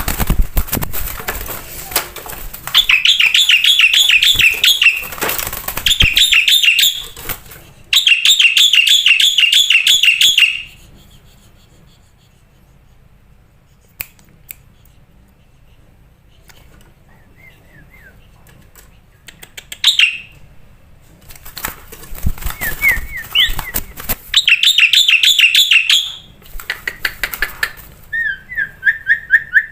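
Black-winged myna (jalak putih) singing: loud bursts of rapid, trilled, chattering phrases with harsh raspy notes, broken by a pause of several seconds midway before the song resumes.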